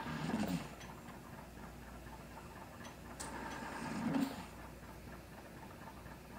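Mechanical ventilator cycling: a sharp click followed by a breath of air lasting about a second. It repeats about every three and a half seconds, at the start and again a little past three seconds in.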